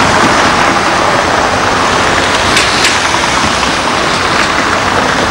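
Heavy construction machinery running steadily, including the diesel of a crawler crane working a clamshell grab: a dense, even noise with no clear engine beat. A few faint clinks come about two and a half seconds in.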